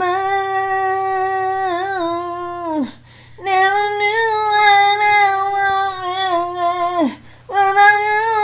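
A woman singing, holding three long notes one after another with a short breath between them; the first two each end with a slide down in pitch.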